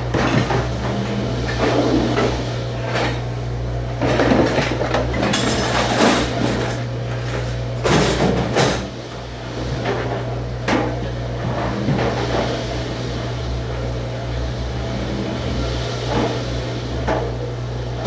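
Dishes and utensils clattering and knocking irregularly at a stainless steel dish station, over a steady low machine hum.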